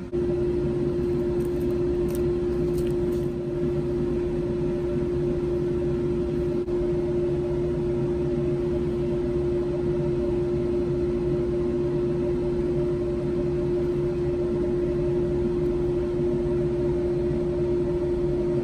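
Steady machine hum, like an electric motor or fan running, with one constant pitched tone over a low rumble.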